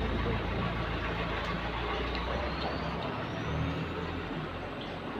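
Low engine rumble of a motor vehicle going by, swelling and easing over a few seconds, with a faint rising whine.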